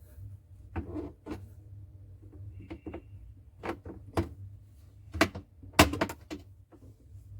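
Irregular sharp clicks and knocks, about a dozen, the loudest a cluster about six seconds in, over a steady low hum.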